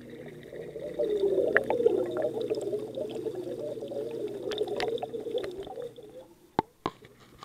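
Muffled water gurgling and sloshing, heard from a camera underwater in an aquarium. It swells about a second in and fades near six seconds, followed by a few sharp knocks.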